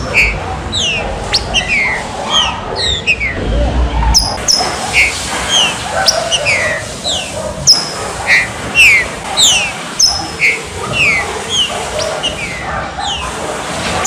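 Green-winged saltator (trinca-ferro) calls: a quick, irregular run of short, high whistled notes, each sliding downward, several a second.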